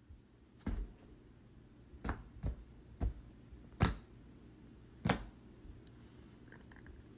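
Irregular sharp taps and thumps, about six in five seconds, as cats pounce and swat at each other on a bed with a duvet.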